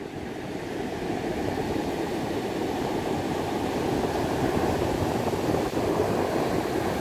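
North Sea surf breaking on a sandy beach: a steady wash of waves, with wind rumbling on the microphone.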